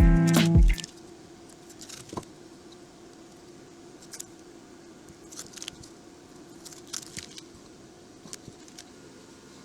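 Music cuts off under a second in, followed by faint scattered clicks and taps of small objects being handled.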